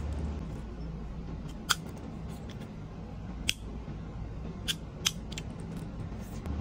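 Four sharp clicks of a soda-can-shaped gas lighter being handled and lit, spread over a few seconds, over a steady low hum.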